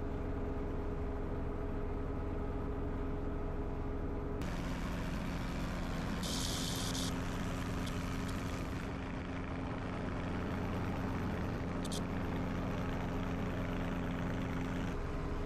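Training helicopter's engine and rotor running steadily in a low hover, heard inside the cabin: a constant drone with steady tones whose pitch mix changes about four seconds in.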